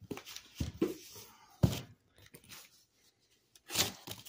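Handling of comic books and shipping-box packaging: a few soft knocks and rustles, the sharpest knock about a second and a half in and a short rustle near the end.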